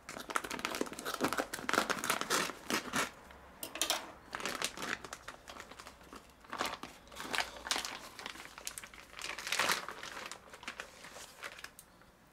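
Plastic vacuum-seal bag crinkling in irregular bursts as it is cut open, torn and peeled back from a slab of marinated meat; the crinkling stops near the end.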